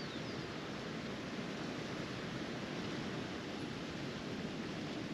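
Steady wind noise: wind rushing over the microphone and through nearby trees, an even hiss with no knocks or machine sounds. A faint high chirp falls away at the very start.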